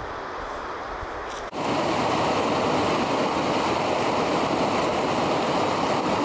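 Rushing whitewater: a glacial river pouring over a rocky drop in a loud, steady rush. It starts abruptly about a second and a half in, after a quieter stretch of steady outdoor noise.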